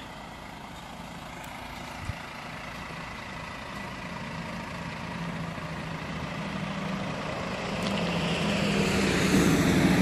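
Scania semi-truck hauling a container, its diesel engine moving off slowly and growing steadily louder as it approaches, the low engine hum strongest near the end. A single short knock about two seconds in.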